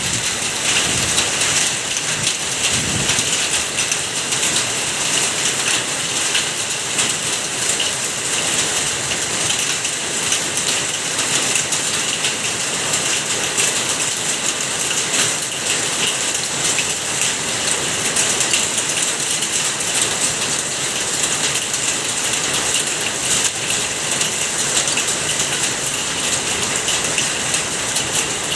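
Heavy rain mixed with hail pattering densely and steadily on hard surfaces, a continuous hiss full of sharp little ticks.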